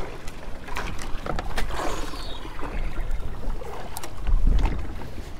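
Wind buffeting the microphone and water lapping at the boat, with the low rumble swelling about four seconds in. Scattered light clicks run through it as a spinning reel is wound in.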